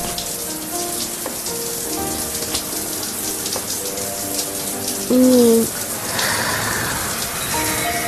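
A shower spraying water in a steady hiss, over background music of held notes, with one short, louder held note about five seconds in.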